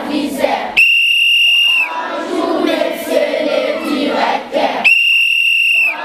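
A crowd of schoolchildren chanting together, cut across twice by a long, steady whistle blast about a second long: once about a second in and again near the end.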